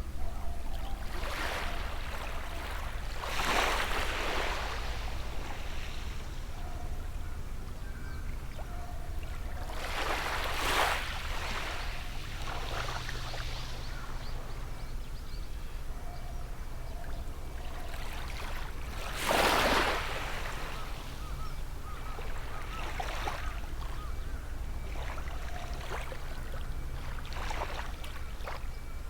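Gentle sea waves washing onto the shore, with three main swells about seven to nine seconds apart and smaller washes between, over a steady low rumble. A few short, faint bird calls come in between the waves.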